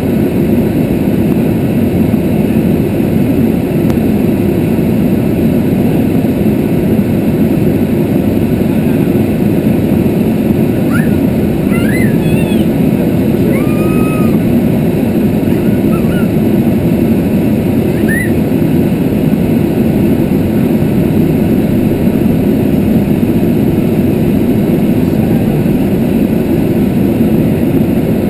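Steady engine and airflow noise of an aircraft in flight, heard inside the cockpit, a loud even rush with no change in level.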